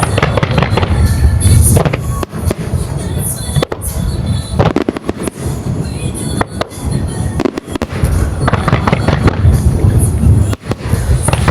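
Aerial fireworks shells bursting in quick succession: a dense run of deep booms and sharp cracks over a continuous low rumble.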